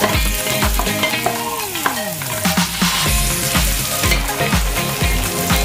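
Food sizzling in hot oil in a pan, under background music with a steady bass beat about twice a second; the beat drops out for a moment about a second in while a tone slides downward, then returns.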